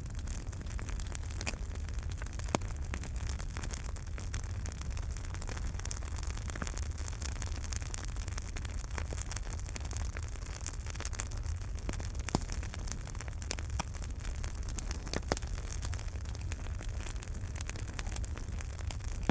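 Wood fire in a fireplace crackling steadily over a low rumble, with a few louder pops among the small crackles.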